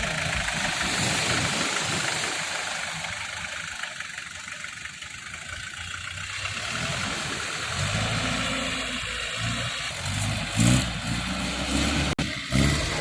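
Old Mitsubishi 4x4 jeep's engine running: it eases off for a few seconds, then picks up strongly again about eight seconds in. A steady hiss, like wind on the microphone, sits over it, and there is a brief cut-out near the end.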